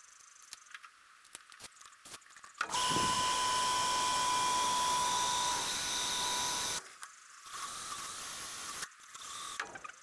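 Power drill spinning the 1965 Cadillac 429's oil pump through a gutted dummy distributor to prime the oil system. After a few light clicks, it runs for about four seconds with a slightly rising whine, then twice more in shorter runs near the end.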